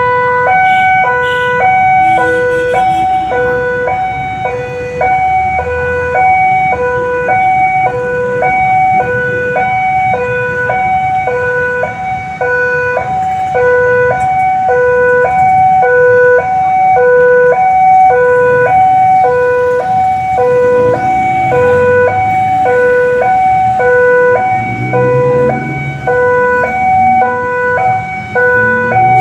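Railway level-crossing warning alarm sounding a loud electronic two-tone signal, alternating steadily between a low and a high note. Road vehicle engines rumble beneath it in the second half.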